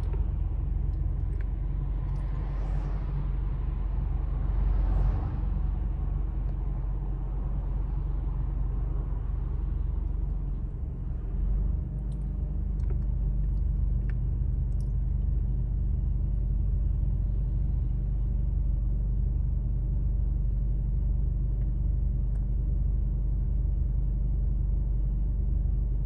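Street traffic: cars pass close by, three of them swelling and fading within the first five seconds or so, over a steady low engine rumble.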